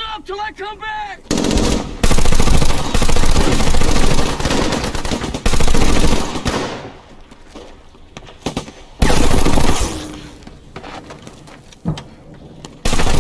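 A man yelling briefly, then dense, rapid gunfire with shots overlapping for about five seconds. A second burst of gunfire comes at about nine seconds and a single loud shot near the end.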